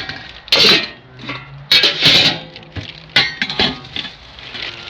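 Clattering and rustling of objects being handled, with a few loud, sharp bursts.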